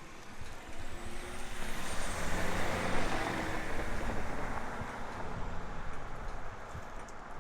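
A vehicle passing by: a rush of running noise that builds, peaks about three seconds in and fades away, with a faint high whine over it.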